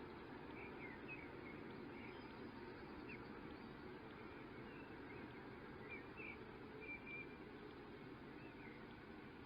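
Faint, short bird chirps scattered over a steady background hiss.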